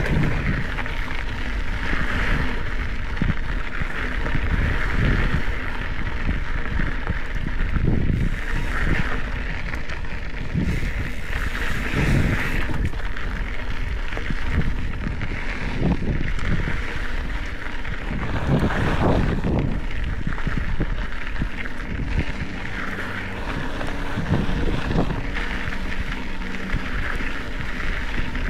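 Wind buffeting the microphone while a Specialized Epic 8 Evo mountain bike rolls over a rough dirt singletrack, tyres grinding on the dirt, with occasional knocks as it goes over bumps.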